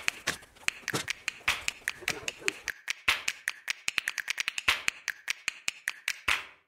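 A rapid, irregular run of sharp clicks and taps, several a second, that stops abruptly near the end.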